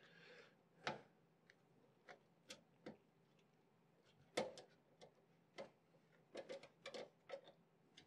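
Faint, irregular clicks and ticks of a hand screwdriver driving radiator mounting screws into a PC case. There is a single click about a second in, a sharper one past the middle, and a quick run of clicks near the end.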